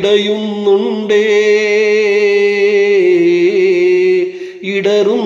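A man singing a Malayalam song into a handheld karaoke microphone. About a second in he holds one long note with a slight vibrato for about three seconds.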